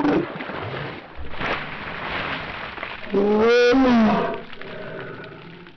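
Ice water from a cooler splashing over a woman, who cries out as it hits. About three seconds in she lets out a long scream, the loudest sound here, and then the splashing dies away.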